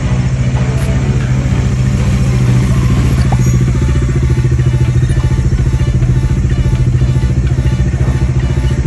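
Bajaj Dominar 400's single-cylinder engine running steadily at an even pitch.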